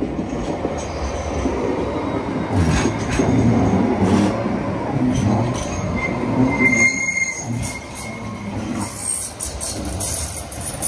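Alstom light-rail tram running past on a curved track with a rumbling steel-wheel sound. A thin wheel squeal sets in about two-thirds of the way through, and a higher squeal follows near the end.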